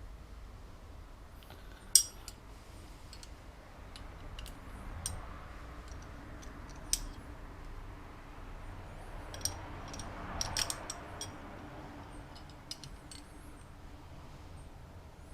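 Small metal tools and parts clicking and clinking as they are handled, in irregular separate clicks rather than a steady rhythm. The sharpest click comes about two seconds in, with a small cluster around the ten-second mark.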